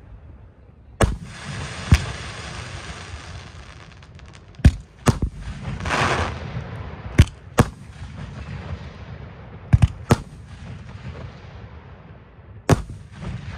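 Aerial firework shells launching and bursting: about nine sharp bangs, several coming in close pairs, over a lingering rumble. A brief hissing swell comes about six seconds in.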